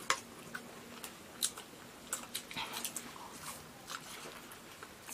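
Biting into and chewing pan-fried Chinese chive pockets, with scattered short mouth clicks.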